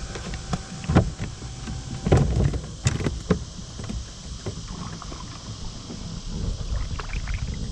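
Knocks and clunks on a fishing kayak's hull, several sharp ones in the first three and a half seconds, over a low rumbling haze. A faint steady tone stops about two seconds in.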